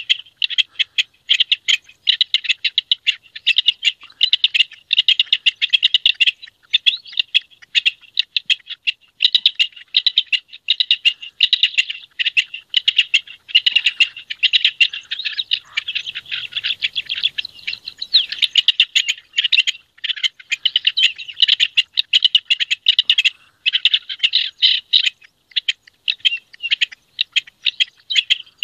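Rock partridge giving its breeding-season song: long runs of rapid, harsh chattering notes with only brief breaks.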